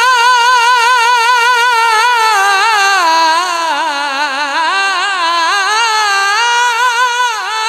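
A man singing a naat unaccompanied into a microphone: one long high note held with a wide, even vibrato, then, about two and a half seconds in, an ornamented run that dips lower and climbs back up.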